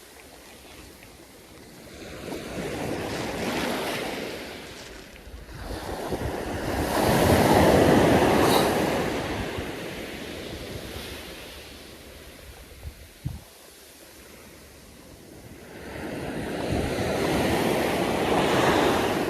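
Sea waves breaking and washing up a sandy surf beach, in slow swells that build and fade over a few seconds each, three main ones, with some wind buffeting the microphone.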